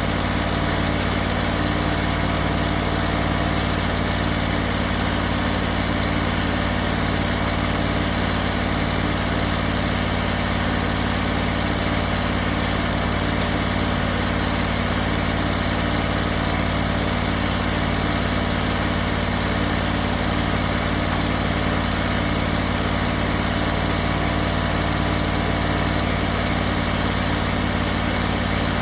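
Engine of a hydraulic sawmill running at a steady, unchanging speed.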